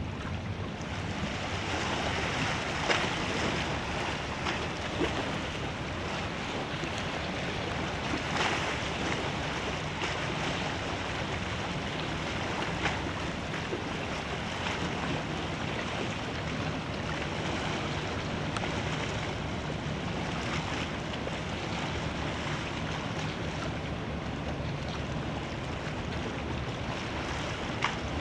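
Wind on the microphone over the wash of water along the hull of a passing racing yacht, steady throughout, with a few brief sharp knocks.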